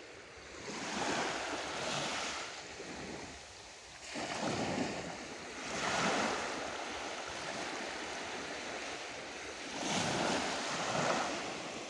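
Surf breaking and washing up the beach, the rush of water swelling and fading about four times.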